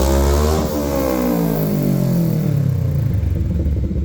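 Kawasaki KRX 1000's parallel-twin engine revved through a Trinity Stage 5 slip-on muffler with no silencer core, sounding loud and raspy. The revs peak about half a second in and fall back to idle over the next few seconds.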